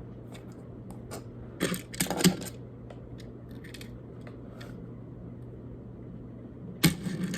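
Small plastic toy playset pieces being handled: scattered light clicks and taps, then a louder burst of rustling and handling noise near the end, over a steady low hum.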